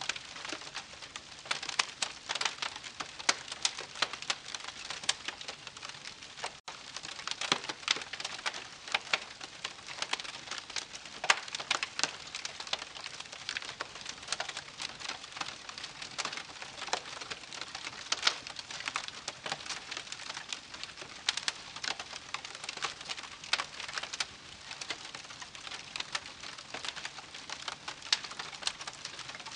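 Wood campfire crackling: dense, irregular pops and snaps over a steady soft hiss, with a momentary gap about six and a half seconds in.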